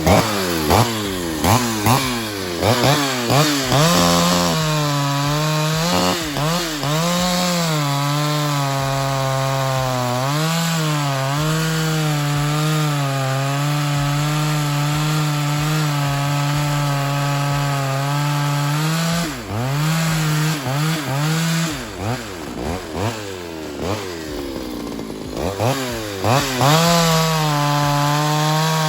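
Ported Pioneer 3270 two-stroke chainsaw revved several times, then held at a steady high speed for about ten seconds as if pulling through a cut. It drops and wavers for a few seconds, then revs up again near the end.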